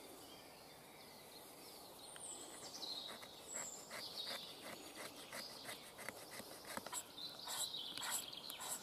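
Short, quick scraping strokes of a sharpened steel striker shaving fine scrapings off a piece of fatwood, turning to scraping a small magnesium block near the end, with birds chirping faintly.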